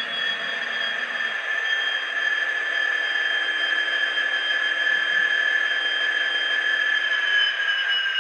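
Dapol N gauge Class 66 model's DCC sound decoder playing its diesel engine sound through the tiny onboard speakers: a steady high-pitched whine over a hiss.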